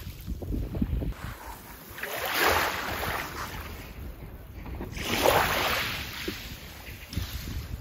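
Small waves washing onto a shell-and-gravel shore, two swells of hiss about three seconds apart, with wind rumbling on the microphone.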